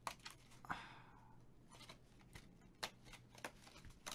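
Faint crinkling and rustling of a Japanese DIY candy kit's cardboard box and plastic wrapper being handled and opened, with a few sharp clicks and a short rustle about a second in.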